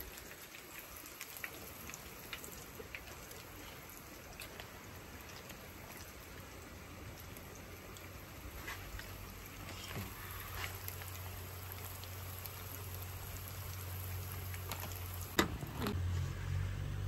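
Nuggets sizzling in hot oil in a pan on a portable gas stove: a steady frying hiss with scattered small crackles. Near the end a sharp knock, then a low steady hum.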